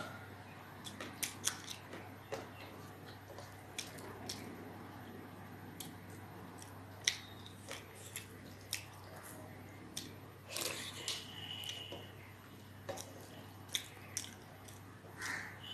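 Eating by hand from a steel plate: fingers squishing and mixing wet rice with fish curry against the metal, with chewing and many small scattered clicks and taps.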